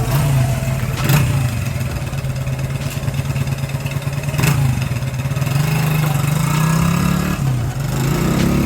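A 1981 Honda XR100's single-cylinder four-stroke engine running under load while the bike is ridden. The revs climb slowly, dip briefly near the end, then rise again.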